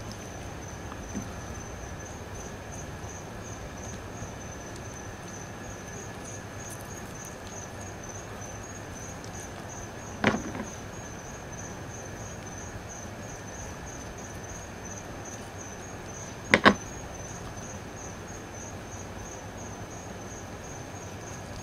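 Crickets chirping steadily in a continuous high pulsing trill. Two sharp knocks break through, one about ten seconds in and a quick double knock about six seconds later.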